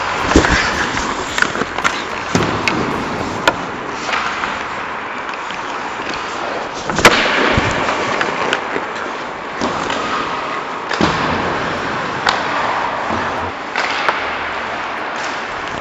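Ice hockey play: skate blades scraping the ice, with a run of sharp clacks and knocks from sticks and puck, the loudest a crack about seven seconds in.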